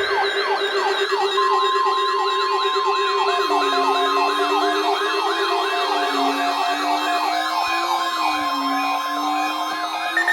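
Weather-radio alert tones: a fast repeating siren-like wail, about three sweeps a second, joined about a second and a half in by a steady 1050 Hz NOAA Weather Radio warning alarm tone sounding for a weekly test.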